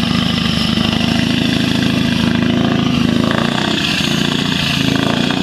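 Scania V8 truck engine running steadily through open exhaust pipes.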